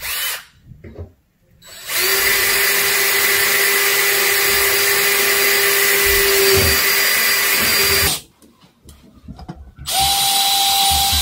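Cordless drill boring holes in a metal mailbox. A short burst at the start, then a steady run of about six seconds that stops, and after a pause of under two seconds a second run at a higher pitch.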